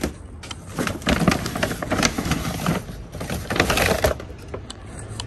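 Plastic bag crinkling and rustling as it is handled and pulled open, in two spells of dense crackling.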